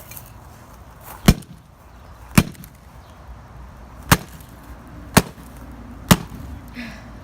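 Five sharp, hard blows about a second apart: a laptop being struck with a tool.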